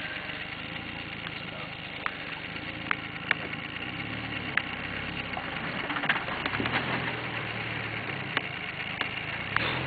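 Jeep Wrangler engine running at low revs as it crawls up a rocky dirt climb, its revs rising about four seconds in and again a couple of seconds later. Scattered sharp clicks sound through it.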